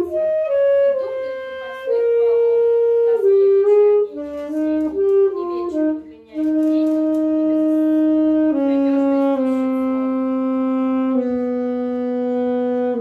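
Solo saxophone playing a slow melody: a phrase of shorter notes, a brief break about six seconds in, then long held notes that step downward.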